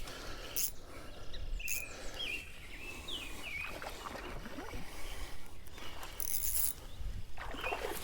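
Outdoor creek ambience: a small bird chirping repeatedly, with a few brief hissing rustles in between.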